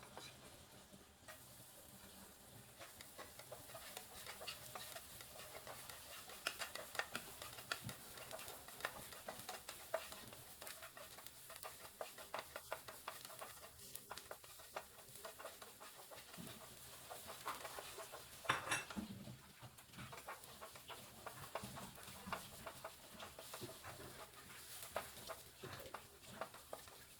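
A kitchen utensil stirring and clicking against cookware: a run of quick, light clicks and scrapes, with a louder cluster of knocks about two-thirds of the way through.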